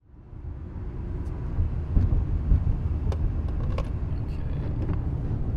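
Road and engine noise heard from inside a moving car's cabin: a steady low rumble that fades in over the first second, with a few faint clicks.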